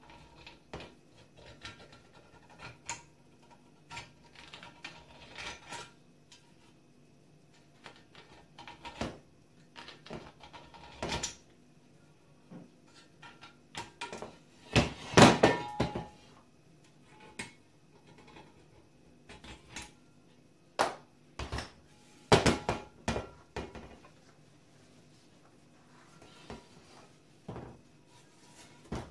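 Hand deburring tool scraping along the machined edges of an exhaust manifold's port openings to remove the burrs the cutter left. It comes as irregular short scrapes and clicks of metal on metal, with a few louder clattering stretches about halfway through and again later on.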